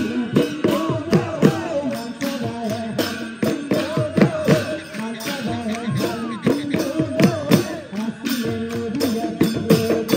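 Live Assamese Bihu music: dhol drums beating a quick, driving rhythm under singing with a bending, ornamented melody, and jingling percussion such as cymbals on top.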